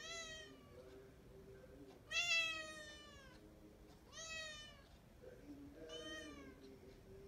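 Domestic cat meowing four times in long drawn-out calls, each sliding down in pitch; the second, about two seconds in, is the loudest and longest.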